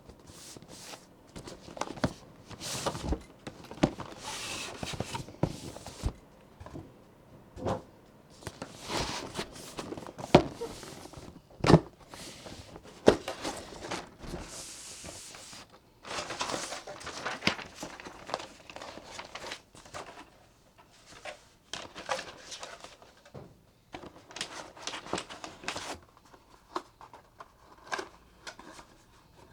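Irregular knocks, clacks and rustling of a boxed mechanical keyboard and its packaging being handled and unpacked.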